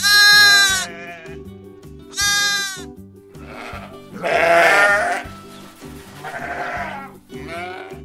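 Sheep bleating, about five separate calls, the first right at the start the loudest, over steady background music.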